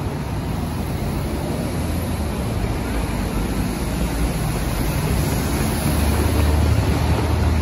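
City street traffic noise: a steady wash of passing cars with a low rumble that grows louder about six seconds in.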